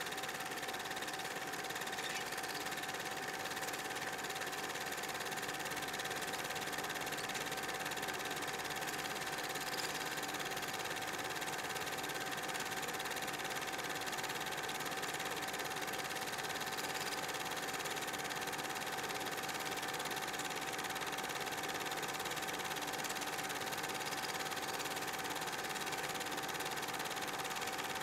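Super 8 film projector running: a steady mechanical whirr with a constant hum that does not change across the scene cuts.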